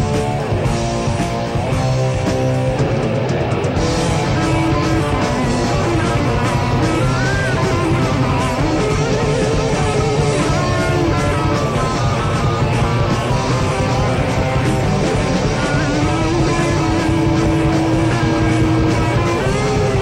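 Heavy metal band recording from a 1987 demo cassette: distorted electric guitars and bass playing steadily, with a melodic line that bends up and down in pitch over the top.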